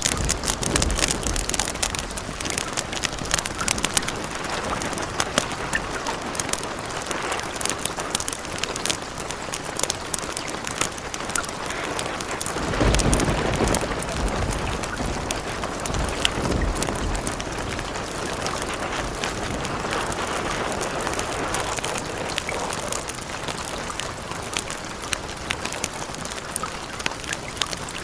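Steady rain with fireplace crackles, and a low roll of thunder about halfway through.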